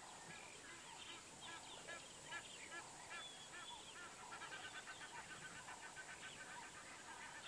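Egyptian goose honking in a run of short, repeated calls, faint. The calls come faster and closer together from about halfway through.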